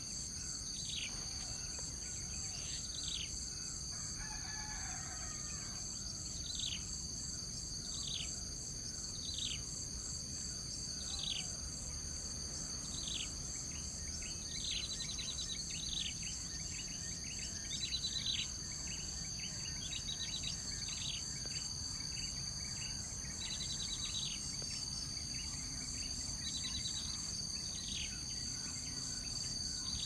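A steady chorus of insects with high ringing, pulsing drones, over which a bird repeatedly gives short high calls that drop in pitch, one every second or two, some of them as quick buzzy trills. A rooster crows faintly about four seconds in.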